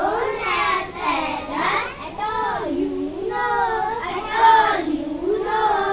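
A child singing a poem in a sing-song voice, one high pitched melodic line held through phrases.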